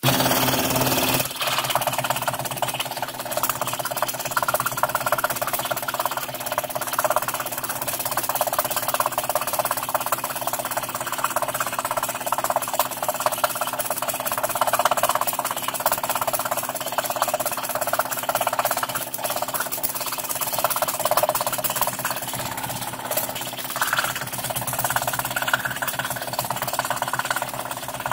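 Scroll saw running steadily, its fine blade stroking rapidly up and down as it cuts a fretwork pattern in thin plywood.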